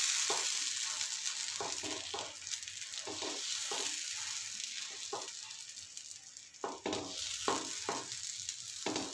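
Thin rice-flour and urad dal batter sizzling on a hot oiled pan while the back of a ladle spreads it round, with short, irregular strokes as the ladle moves over the batter and pan.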